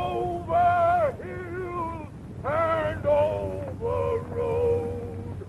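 A man singing a slow song in long held notes that change pitch every half-second to a second, over a steady low hum.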